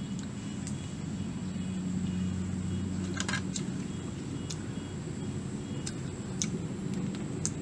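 A steady low hum with a few short light clicks and scrapes as a spoon works in a small jar during eating.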